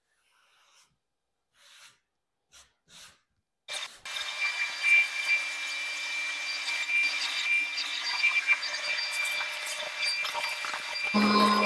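A few faint rustles, then about four seconds in a power tool starts working wood or laminate, a steady noisy cutting or abrading sound with a high whine. Near the end it changes to a different, lower steady hum.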